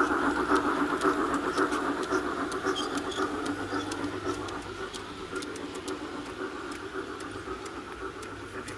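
Large-scale garden-railway model train running past, the rumble of its wheels on the track with scattered clicks. It fades steadily as the train moves away.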